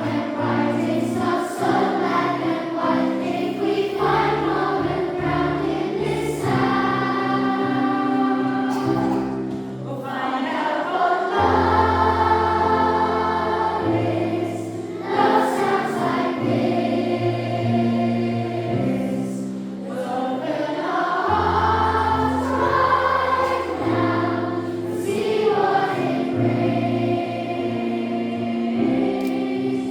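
A massed children's choir singing a song in unison with instrumental accompaniment, held low bass notes changing every second or two beneath the voices.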